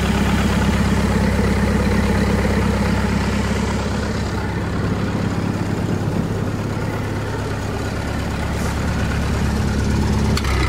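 Engine on a welding rig idling steadily, started without choke, with a slight dip in level about four seconds in.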